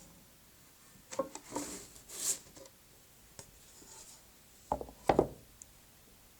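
Carved wooden parts being handled on a bench: light rubbing and scraping with scattered small knocks, and two louder wooden knocks about five seconds in.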